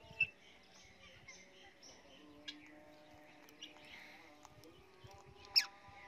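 Parrots chirping: a few short, sharp calls, the loudest a quick falling call about five and a half seconds in, over faint held tones.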